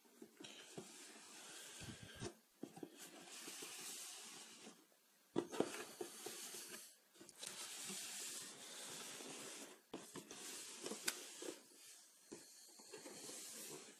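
Faint rustling and scraping of a pair of trainers and their cardboard shoe box being handled and shifted, in uneven stretches with short pauses and a few light knocks.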